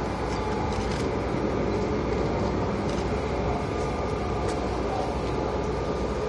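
Steady distant rumble of the four jet engines of the Boeing 747 Shuttle Carrier Aircraft carrying the space shuttle Discovery as it flies past low.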